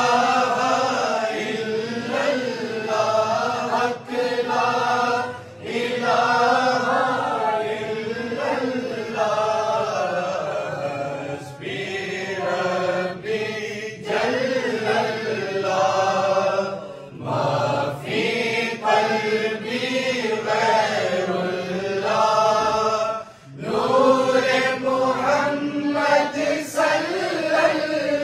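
Group of men and boys chanting a durood in unison, in long sung phrases with brief pauses between them.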